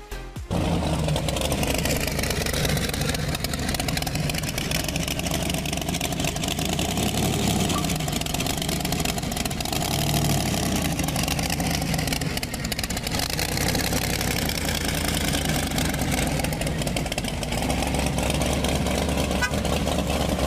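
Hot rod engine running steadily at a fast idle, loud and even throughout, with small swells in pitch.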